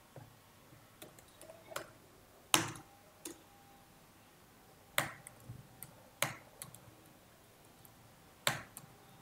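Computer keyboard keys pressed one at a time: a handful of separate, sharp clicks spaced irregularly about a second apart while a spreadsheet formula is typed and edited, the sharpest about two and a half seconds in.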